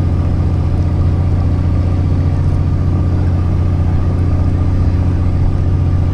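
A fishing boat's engine running steadily: a low, even drone that holds the same pitch and loudness throughout.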